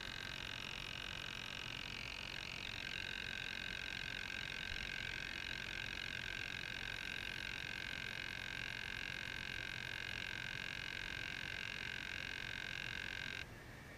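Steady high-pitched electric whine from the RC boat's twin brushed motors and speed controller running at low throttle, cutting off suddenly near the end as the motors stop.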